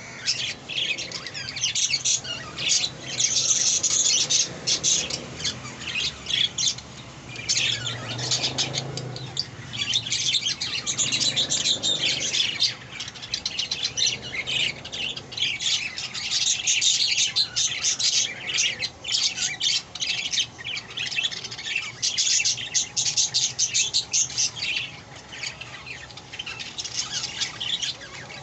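Budgerigars chirping and squawking in a dense, rapid stream of high calls, with only brief pauses.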